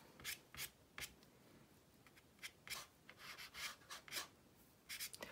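Dry pastel stick scratching across rough toned paper in short, irregular strokes, faint.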